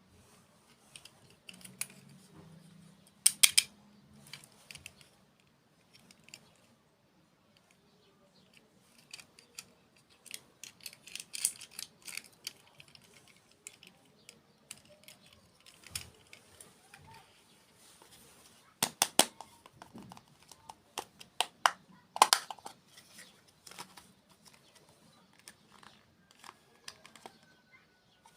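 Close-miked eating sounds: bites and chewing of desserts, with clusters of short sharp crunches and mouth clicks, the loudest about three seconds in and again around nineteen and twenty-two seconds in.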